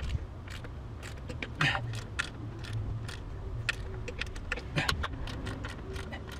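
Torque wrench clicking and rattling on the upper intake plenum bolts of a VQ35 V6 as they are tightened down. The clicks are short and irregular, with a couple of louder ones about a second and a half in and again near five seconds.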